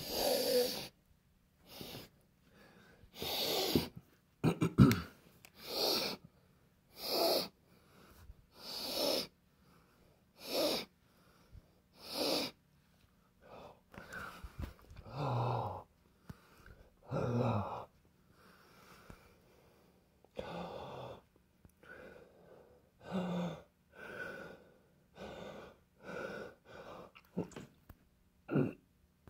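A person breathing hard and unevenly right at the microphone, about one loud breath or gasp every second and a half, a few with a low sound from the throat.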